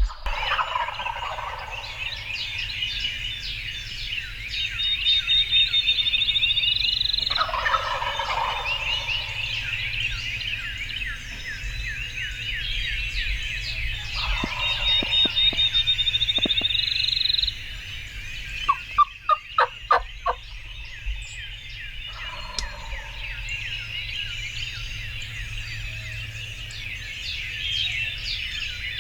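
Several wild turkey gobblers gobbling over and over, their calls overlapping, with a louder, deeper gobble breaking out about every seven seconds. About two-thirds of the way through comes a quick run of about six sharp notes.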